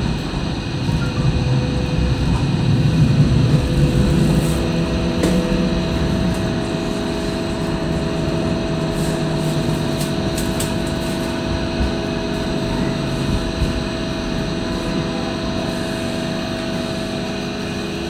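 Light-rail train running, heard from inside the car: a low rumble, heaviest in the first few seconds, under a steady hum of several held tones.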